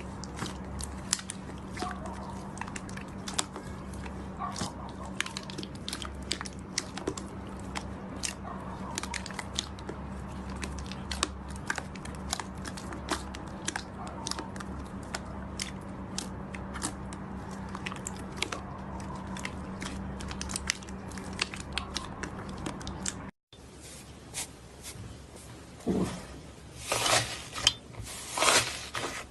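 Slime being squeezed and worked by hand, giving off a dense run of small crackles and pops. After a short break near the end come a few louder, longer squelches.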